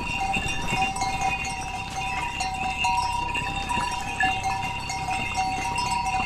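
Bells on pack ponies' harnesses ringing steadily and without a break as the ponies walk, several bell tones blending together.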